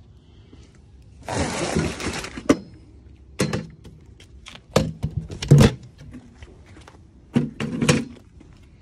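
A tubular-frame folding step stool being pulled out of a cluttered trailer storage compartment: a scraping slide, then a series of clanks and knocks as it is handled and set down on asphalt, the loudest knock a little past halfway.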